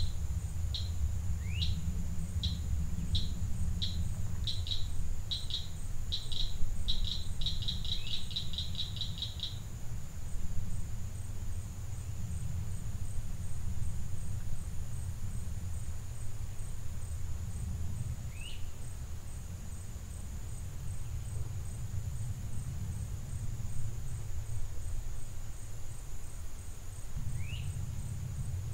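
Outdoor field ambience: a steady low rumble under a constant high-pitched insect buzz. A bird sings a run of short high notes that speed up into a quick trill over the first ten seconds, then gives two brief rising chirps later on.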